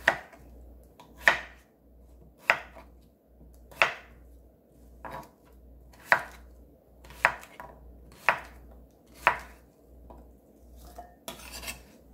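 Chef's knife chopping a Korean zucchini on a wooden cutting board: a sharp knock each time the blade hits the board, about one stroke a second, then softer rustling near the end.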